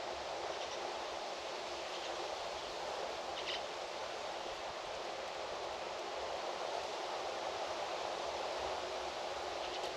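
Outdoor farm ambience: a steady rushing noise with a few faint, short bird chirps, the clearest about three and a half seconds in.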